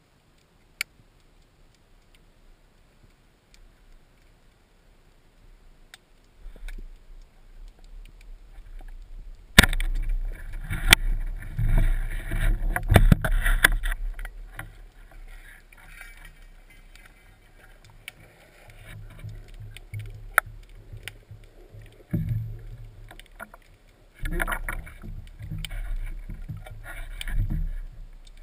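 Underwater sound picked up by a camera mounted on a speargun: one sharp click about a second in, then, from about ten seconds in, loud rushing and sloshing water noise in uneven surges with occasional knocks as the diver moves through the water toward the surface.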